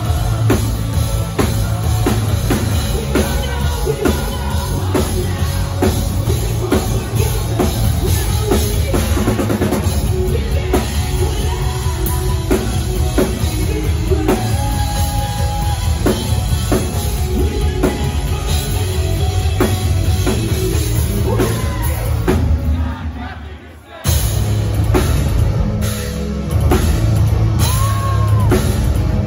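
Live post-hardcore rock band playing loudly, with pounding drums, distorted guitars and singing. The band drops out briefly a little before the 24-second mark, then crashes back in.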